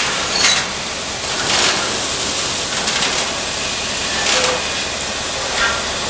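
Soybeans pouring from an overhead bin spout into a semi's hopper trailer: a loud, steady rushing hiss of grain.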